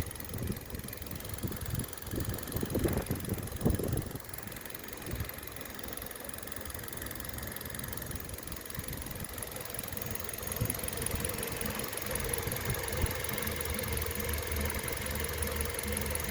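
2011 Hyundai Solaris 1.4-litre four-cylinder petrol engine idling steadily at about 160,000 km, carrying an extraneous noise that the owner is checking. Uneven low thumps during the first few seconds.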